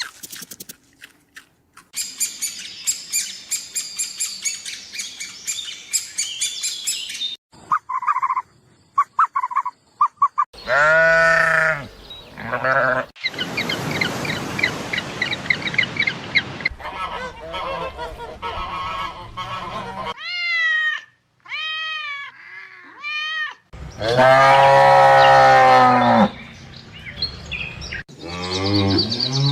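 A string of different animal calls. First comes a stretch of rapid, high bird chirping. Then follow several drawn-out bleats of goats or sheep, the loudest and longest late on, with short sweeping calls between them.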